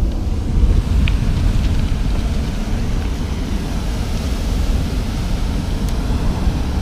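Wind buffeting the microphone as a steady, fluttering low rumble, with the wash of surf on a pebble beach beneath it.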